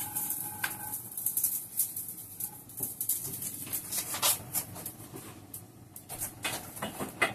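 Scattered light clicks, taps and knocks of kitchen handling at the oven and hob, irregular and unhurried. A faint steady hum fades out about a second in.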